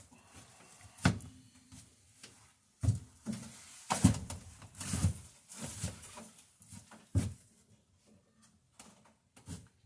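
Irregular knocks, thuds and clatter of wood and tools being handled and set down, with shuffling steps in between, in a small wooden workshop.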